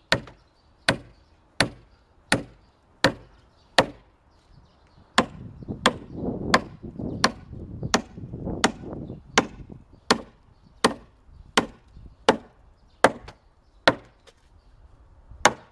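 Steady, even hammer blows on wood, about one every three-quarters of a second, with two short pauses. For a few seconds in the middle a rougher rumbling noise runs beneath the strikes.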